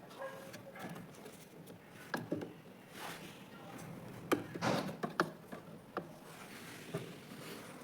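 Irregular knocks and clicks of hard objects being handled, with a sharper cluster of knocks about four and a half seconds in.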